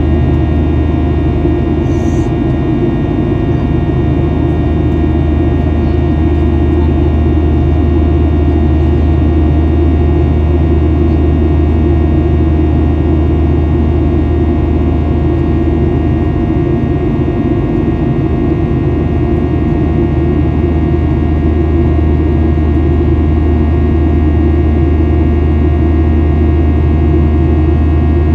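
Boeing 737-800 cabin noise from a seat beside the engine: the CFM56-7B turbofan running steadily in flight, a loud low rumble with several steady whining tones above it.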